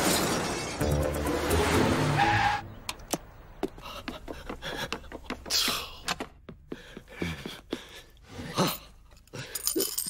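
Cartoon crash sound effect: a loud jumble of shattering and breaking over music that cuts off abruptly about two and a half seconds in. It is followed by quieter scattered knocks, clicks and scrapes.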